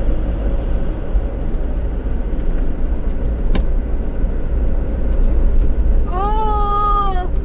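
Steady low rumble of a car's engine and tyres heard from inside the moving car, with a single sharp click about three and a half seconds in. Near the end a voice briefly draws out a long held sound.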